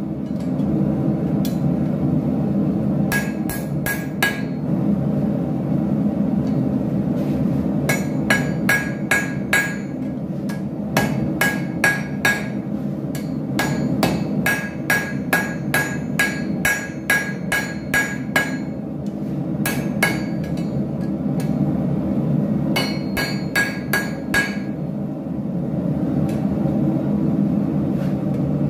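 Hand hammer striking red-hot angle iron on an anvil, forging it into a hook. The blows come in quick runs of about four a second, each with a short metallic ring, separated by pauses of a few seconds. A steady low noise runs underneath.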